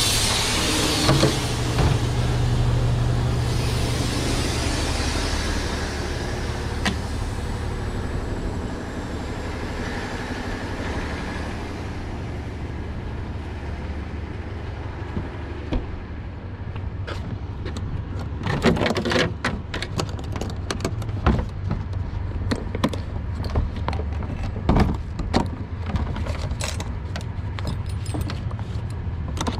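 Heavy-duty tow truck's engine idling steadily. From about halfway in come repeated sharp metallic clinks and clanks of tow chains and hooks being handled as the towed truck is unhooked. A high hiss fades away over the first several seconds.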